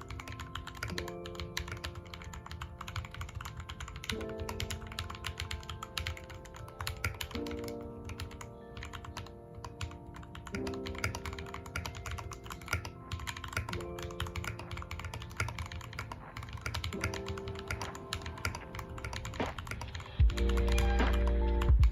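Continuous typing on a modded RK61 mechanical keyboard with lubed MMD Holy Panda tactile switches, plate-mounted: a steady stream of keystroke clacks.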